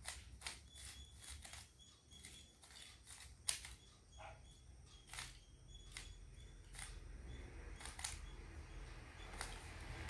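Faint, irregular clicks of a plastic 3x3 Rubik's cube as its layers are twisted by hand, a click every half second to second and a half.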